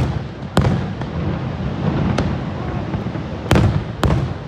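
Fireworks display: aerial shells bursting in about five sharp bangs at irregular intervals, two of them close together near the end, over a steady low rumble.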